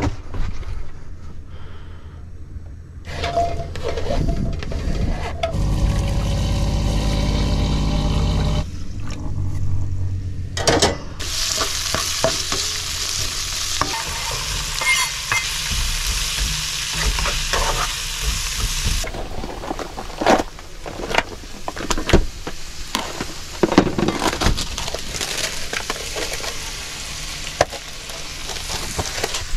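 Chopped peppers and red onion frying in oil in a non-stick frying pan on a gas hob, sizzling, with a spatula stirring and clattering against the pan; the sizzle gets much louder about eleven seconds in and eases off after about eight seconds. Before that, a steady hum runs for about five seconds.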